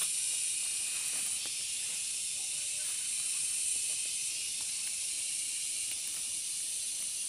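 Steady high-pitched insect chorus, a dense shrill hiss that holds without a break, with a few faint clicks and rustles of greens being pulled and cut.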